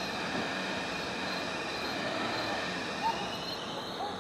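Steady rumbling noise, with crickets trilling faintly and a few short, faint rising calls in the second half.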